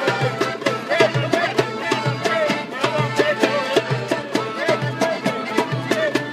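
Street band playing folk music on clarinet, accordion and acoustic guitar: a wavering clarinet melody over a quick, steady beat and a pulsing accordion bass.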